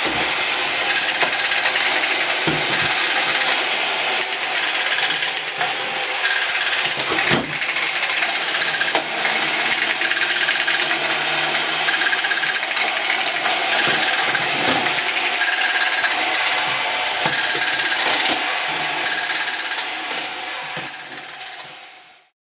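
Two 1970s Tomy Karate Robot toys running, their small motors and plastic gear trains making a dense, steady rattling whir, with a few sharp plastic knocks as they clash. The sound fades out near the end.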